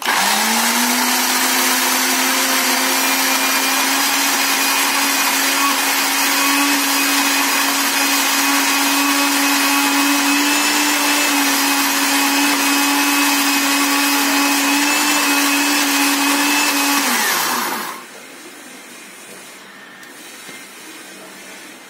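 Electric countertop blender running at a steady pitch for about seventeen seconds while blending a corn bait mixture. It is then switched off and winds down, falling in pitch before it stops.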